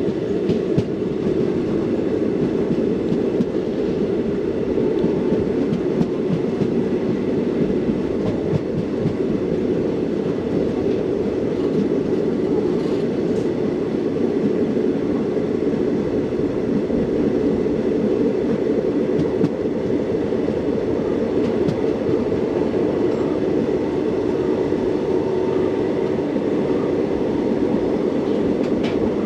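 Express passenger train running at speed, heard from on board: a steady rumble of wheels on the rails, with a few faint knocks.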